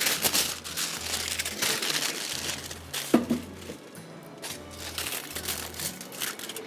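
Crinkling and crackling kitchen handling noise at the cooking pan, busiest for the first three seconds, with one sharp knock about three seconds in, then quieter scattered clicks.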